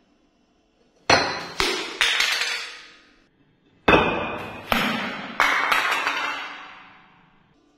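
Six sharp ringing crashes in two groups of three, the first group about a second in and the second near the middle, each ringing bright and dying away over about a second, like glass or china being struck.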